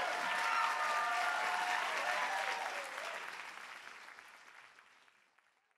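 Theatre audience applauding, with cheering voices over the clapping. The applause fades out over the last two seconds or so.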